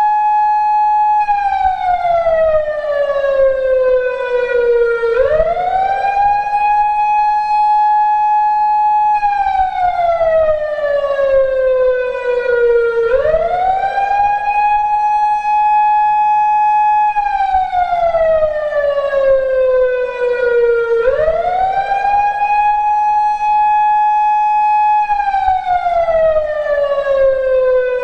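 PATLITE SAP-50 electronic siren amplifier sounding a slow wail through its speaker. The tone rises quickly, holds high for a few seconds, then glides slowly back down, repeating about every eight seconds.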